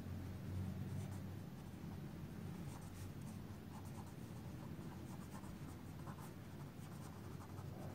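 Pen writing on paper: faint scratching strokes as words are written out, over a low steady room hum.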